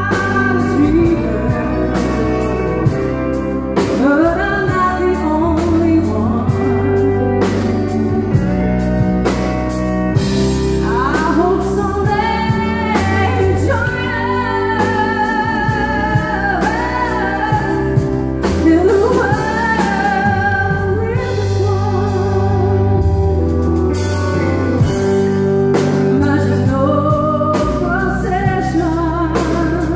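A woman singing live into a microphone, her held notes wavering with vibrato, backed by electric keyboard and a steady drum beat through the PA.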